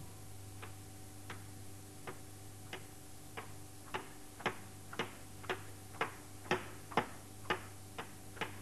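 A regular series of sharp taps, about one every two-thirds of a second at first, coming faster and louder until there are nearly two a second near the end.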